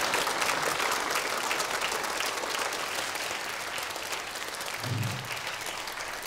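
Audience applauding: many hands clapping together in a dense patter that slowly dies away.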